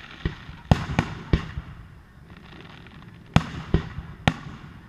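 Fireworks shells bursting overhead: a string of sharp bangs, about four close together in the first second and a half, then a short lull, then three more.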